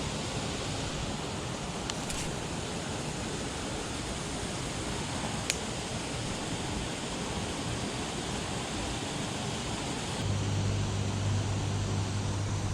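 Steady rushing outdoor noise with a couple of faint clicks, joined about ten seconds in by a low steady hum.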